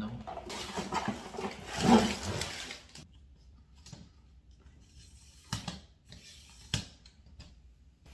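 Packaging and objects being handled, a rustling that is loudest about two seconds in and stops around three seconds in, followed by two sharp clicks a little over a second apart.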